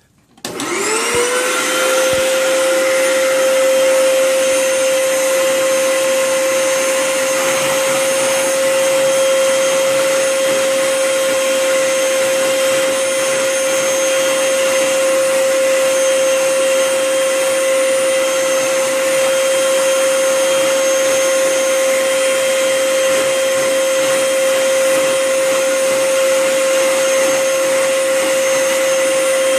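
Vacuum cleaner switched on about half a second in: its motor spins up with a quickly rising whine, then runs steadily with a constant whine and airflow rush.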